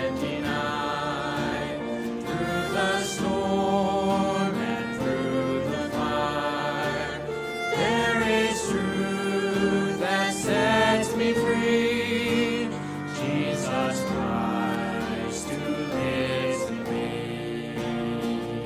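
Several voices singing a contemporary worship song together, with instrumental accompaniment.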